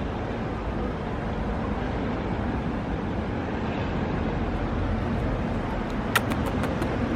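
Wind buffeting the microphone, a steady low rumble, with a quick run of about five sharp clicks a little after six seconds in.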